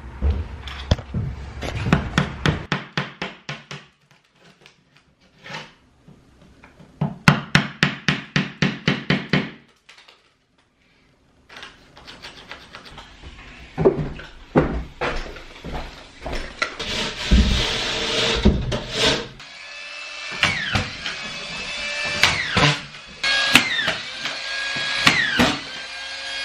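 Quick runs of knocks and taps from a screwdriver probing a plasterboard ceiling to locate the joists. Later a cordless collated (autofeed) screw gun drives screws into the plasterboard ceiling, about one a second, its motor whine falling away after each screw.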